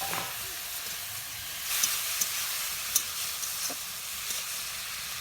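Spice paste sizzling in hot oil in a kadai after spice water has been poured in, the sizzle swelling for a second or so about two seconds in, with a few sharp clicks.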